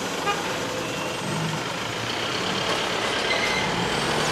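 Road traffic: cars and a ute idling, then pulling away across the tracks as the level-crossing boom gates rise and the road reopens.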